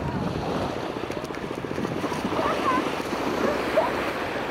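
Wind rushing over the microphone, mixed with the steady wash of sea surf.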